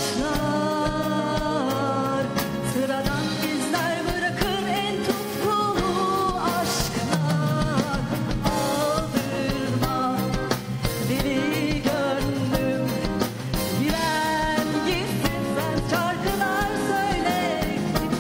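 A woman singing a pop song live into a microphone, backed by a band with keyboards and electric guitar.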